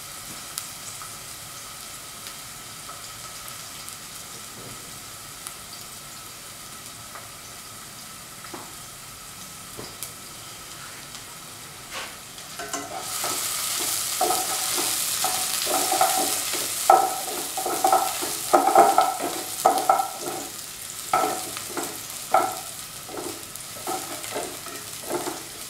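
Sliced onions frying in oil in a pan, with a steady sizzle. About halfway through the sizzle grows louder and a utensil stirs the onions, scraping against the pan in a run of quick, repeated strokes.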